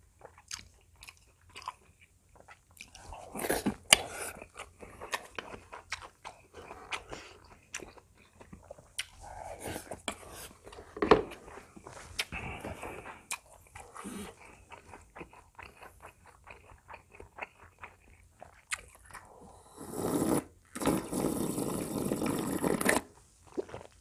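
A man chewing and biting food, with crunchy bites and many small mouth clicks. Near the end comes a loud, noisy stretch of about three seconds.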